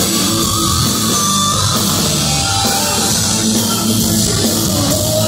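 Hard rock band playing loudly on stage: electric guitar, bass and a drum kit going at full volume.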